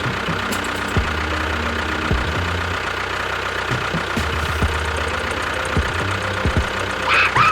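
Engine running steadily with a low hum and irregular knocks, and a brief falling squeal near the end.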